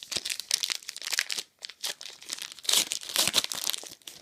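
Foil trading-card pack wrapper being torn open and crinkled by hand, in two bouts of irregular crackling.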